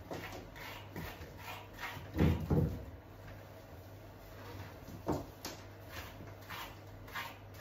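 Grooming brush being drawn through a wet puppy's tightly knotted coat: short scratchy strokes, about three a second, as the knots are worked loose. Two dull thumps come about two seconds in, and a sharper knock near five seconds.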